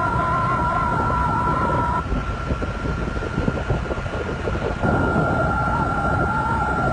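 Wind buffeting the microphone and road rumble on a moving motorcycle, with a steady high whine over it. A wavering pitched tone drops out about two seconds in and returns near five seconds.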